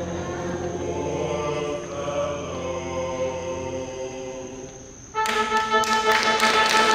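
Live operetta music, an orchestra with voices: held notes fade down, then a loud full chord comes in sharply about five seconds in.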